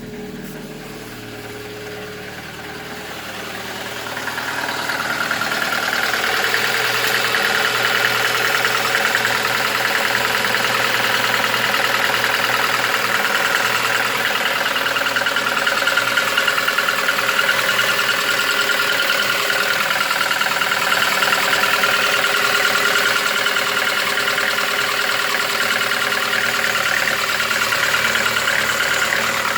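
Lada VAZ-2115 petrol engine idling with a fast, steady knock, getting louder over the first few seconds and then holding. The cause is unknown to the owner: the cylinder head was taken apart and showed no excess play or clearance.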